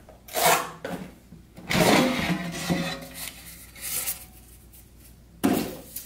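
Chef de Cuisine 7.2-quart air fryer basket being pulled out of its housing and handled, with the plastic scraping and the cardboard packing insert inside it rubbing. There is a longer scraping run about two seconds in and a sharp scrape near the end.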